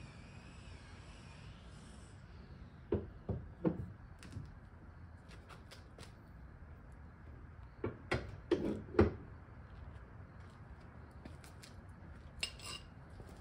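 Ford Mustang hood being pressed down and handled on its new hinges: a few dull knocks about three seconds in, then a louder cluster of clunks around eight to nine seconds in.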